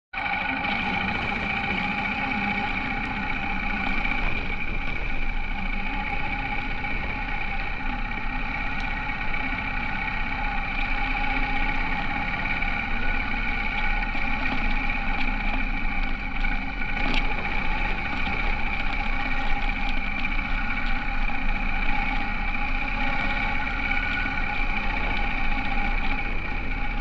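Honda H'ness CB350's single-cylinder engine running at a steady, unchanging pitch.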